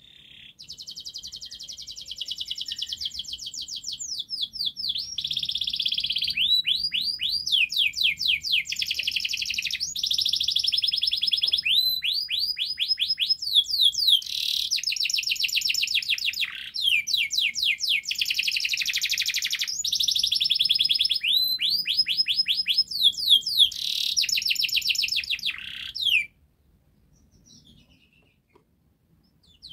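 Domestic canary singing a long, continuous song of rapid trills and rolls, one fast run of repeated notes after another, stopping suddenly about 26 seconds in.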